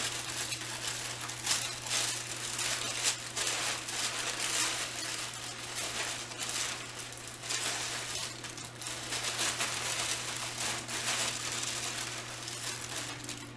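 Crinkling and rustling of plastic snack packaging being handled and opened, in irregular crackles.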